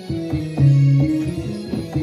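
Roland XP-60 synthesizer playing a bass patch with its octave shift at zero, a line of held notes changing a few times a second. The bass sounds far too high, in the upper octave, which is why it needs to be shifted down minus twelve.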